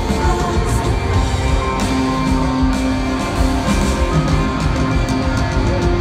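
Live rock band playing in a large arena, heard from among the crowd: a steady groove with guitar and long held notes over a heavy bass and drum beat, carrying a big hall echo.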